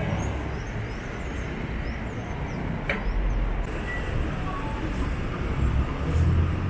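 City bus engines and passing street traffic, a steady low rumble, with a brief knock about three seconds in.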